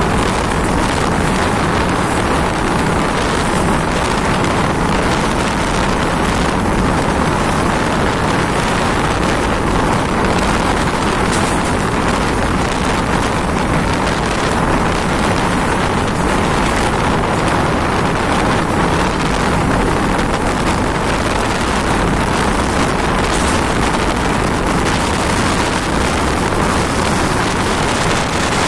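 Steady rush of a Mumbai suburban local train running at speed, heard from its open doorway, with wind buffeting the microphone.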